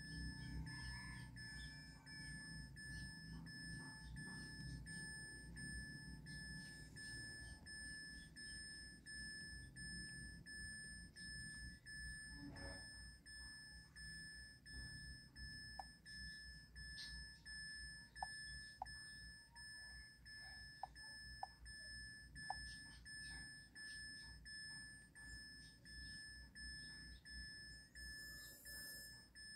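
Faint, steady, high-pitched electronic tone, with a few light clicks in the middle.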